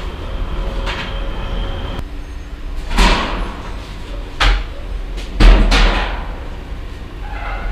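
Knocks and clatters of a baker working at a clay tone oven: three sharp knocks, about three, four and a half and five and a half seconds in, the last trailing into a short scrape, over a steady low hum.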